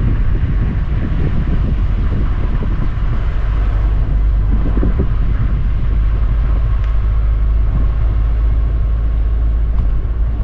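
A loud, steady low rumble, heaviest in the deep bass, with a faint steady hum above it.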